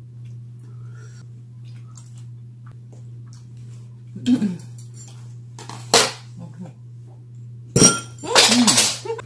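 A few short, throaty non-word vocal sounds, the loudest and longest near the end, with a sharp click about six seconds in, over a steady low hum.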